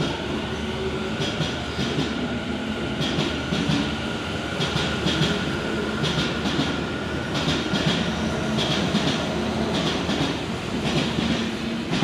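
Tobu 50000 series electric commuter train pulling out of the station and gathering speed, its wheels clattering over the rail joints in repeated clusters of clacks. A steady high whine runs under it and stops about eight seconds in.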